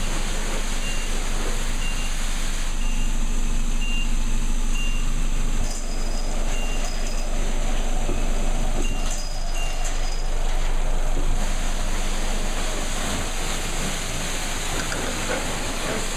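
Steady running of self-serve car wash machinery, with a short high electronic beep repeating about once a second through the first ten seconds, then stopping.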